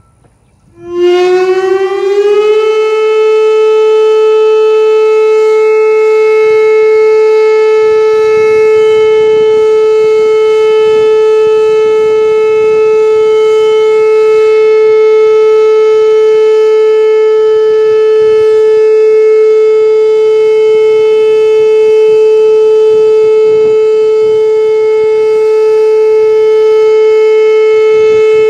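Whelen outdoor tornado warning siren sounding its steady alert tone during a routine test: it starts about a second in, glides up in pitch for a moment, then holds one loud, steady tone.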